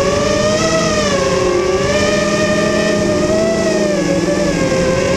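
FPV racing quadcopter's brushless motors and propellers whining, heard from its onboard camera. The pitch wavers up and down with the throttle, over rough wind noise.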